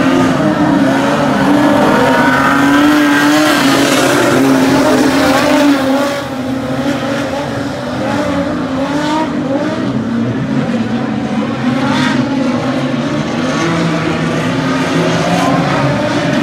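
Several speedway sedan race cars' engines running together on a dirt oval, their pitch rising and falling as the pack circles. The engines are loud at first and drop back a little about six seconds in.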